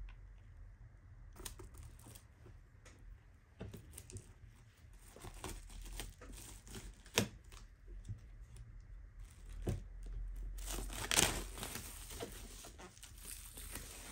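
Plastic shrink wrap being torn and peeled off a boxed album, crinkling with scattered sharp crackles. The crackling thickens about two-thirds of the way through.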